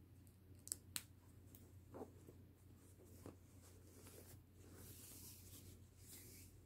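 Faint handling of baby clothes: two sharp clicks about a second in as snap fasteners on a knit top are pressed shut, a few light ticks, then soft fabric rustling near the end as striped pants are pulled into place.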